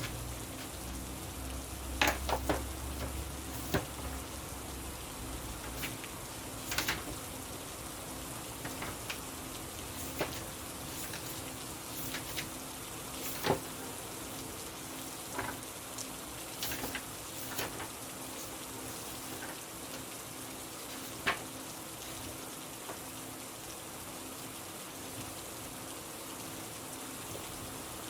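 Steady rain hissing, with sharp ticks of individual drops now and then. A low rumble underneath fades out about six seconds in.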